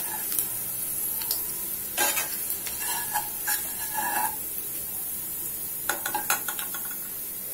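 Onions sizzling as they deep-fry in hot oil in a nonstick pan, while a metal slotted skimmer scoops them out, scraping and clinking against the pan several times.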